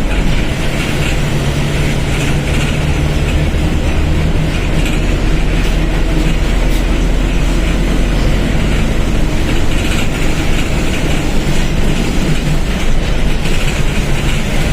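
Mercedes-Benz OF1721 BlueTec 5 bus's four-cylinder diesel engine running steadily, with a constant hiss and rattle of vehicle noise over it.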